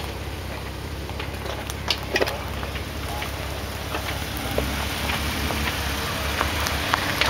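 Jeep Wrangler crawling slowly over rock and forest debris: the engine runs low and steady under scattered crackles and snaps of twigs and branches breaking under the tyres and brushing along the body, with a few sharper snaps about two seconds in.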